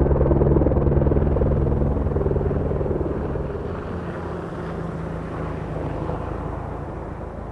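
Rescue helicopter flying, its low rhythmic rotor chop and engine drone fading steadily over the last few seconds as it moves away.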